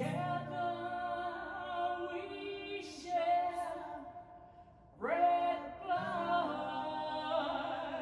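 Unaccompanied singing, a woman's voice holding long notes in two phrases with a short break about halfway through.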